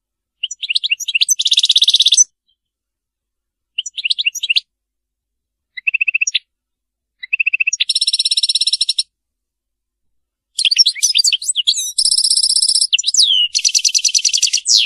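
European goldfinch singing: bursts of high twittering song with fast, buzzy trills, broken by short pauses. A longer unbroken run fills the last few seconds.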